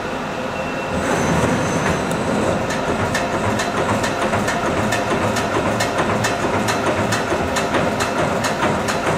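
A Wiedemann Magnum 5000 CNC turret punch press running. About a second in it gets louder and starts punching, with a sharp hit roughly three times a second over the running machine noise.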